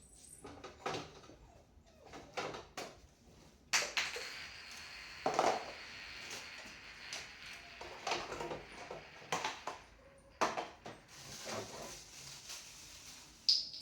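Scattered knocks and clinks of kitchen containers and utensils being handled, over a steady hiss that starts about four seconds in.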